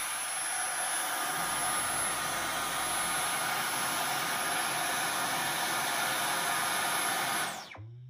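Dyson V11 Torque Drive cordless stick vacuum running steadily, a strong rush of air with a high whine over it. Near the end it is switched off and the motor spins down, the whine falling away as the sound fades.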